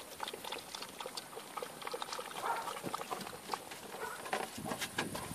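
A puppy eating dry kibble from a plastic bowl: irregular small crunches and clicks. Near the end come denser scrapes and taps as its paws scramble over the boards and wire mesh.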